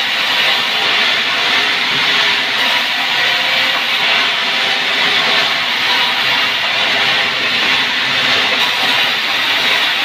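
Sawmill saw cutting sengon wood: a loud, steady, unbroken rushing noise with a faint hum beneath it.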